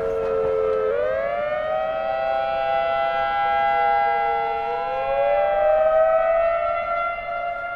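Outdoor civil-defence warning sirens sounding a test, heard from a distance. Several sirens wail at once at different pitches, their tones slowly rising and falling out of step with one another.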